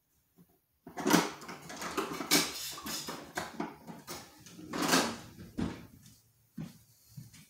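Knocks, scrapes and rustling from someone moving about a small kitchen. Loudest about a second in and again about five seconds in, then dying away.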